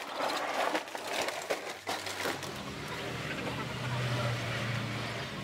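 A large woven plastic sack rustling and crinkling as it is grabbed and hauled, with many sharp crackles. About halfway through the crackles give way to a steadier noise with a low hum.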